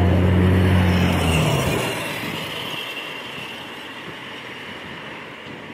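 Road traffic: a low, steady vehicle engine hum that drops away about a second and a half in, followed by the lighter rush of cars passing on a busy road.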